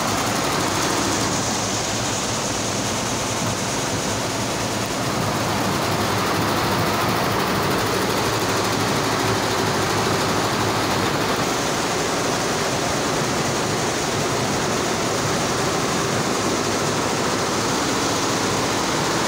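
A multi-head MAYA computerised embroidery machine running at high speed, its many needle heads stitching together in a steady, even mechanical noise that gets slightly louder about five seconds in.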